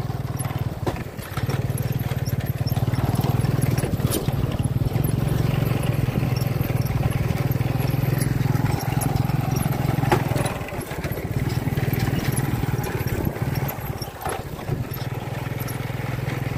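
An engine running steadily with a constant low hum.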